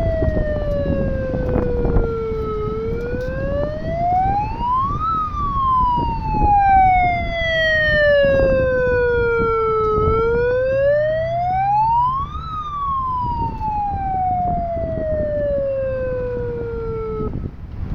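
A siren wailing loudly in slow sweeps, falling, rising, falling, rising and falling again, then cutting off suddenly near the end, over a low rumble.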